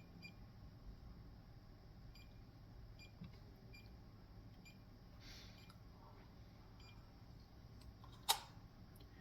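Near silence: faint room tone with a few tiny ticks and one sharper click near the end.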